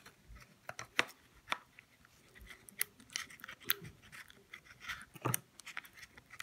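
Thick green slime in a plastic tub being poked and squeezed with a finger, making irregular sharp clicks and small pops.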